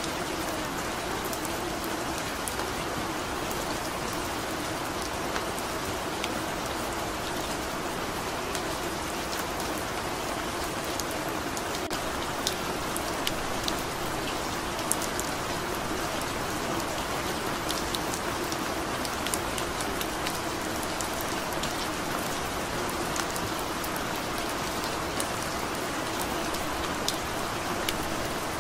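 Steady rain sound with many scattered drops ticking, the masking track of a subliminal recording.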